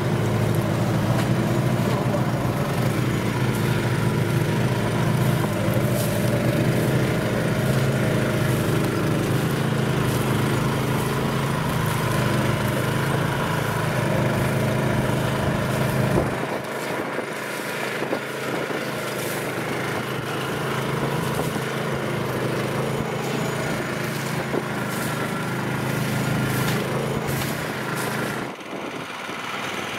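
Engine of a homemade low-pressure-tyre bog vehicle running as it drives through marsh grass. The heavy low hum drops off suddenly about halfway through, and the engine continues lighter, with frequent small knocks over it.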